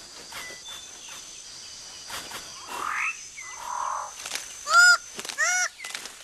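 A bird of paradise giving loud, nasal, honking calls in the rainforest, starting about three-quarters of the way in. Each call is a short note that rises and falls in pitch, repeated about every two-thirds of a second. Under it runs a steady high insect hum.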